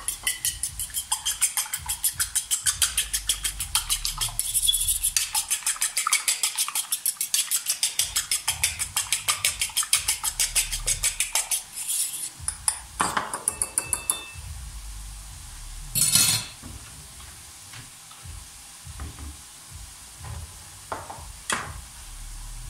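A fork beating an egg in a bowl, clinking rapidly against the bowl at about five strokes a second and stopping about 14 seconds in. One brief louder clatter follows a couple of seconds later, then a few light knocks.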